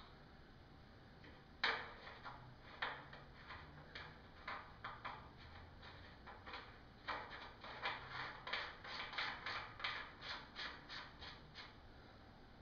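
Irregular light metallic clicks and taps, one or two a second and a little quicker later on, from a greased bottom bracket cup being handled and threaded into a bicycle frame's shell.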